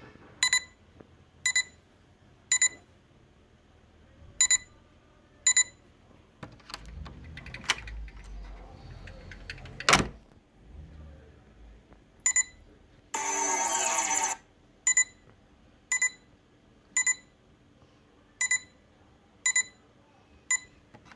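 Electronic beeping: short pitched beeps about once a second, in runs of three or four with pauses between. About ten seconds in there is a sharp click, and a little later a loud buzz lasting about a second and a half.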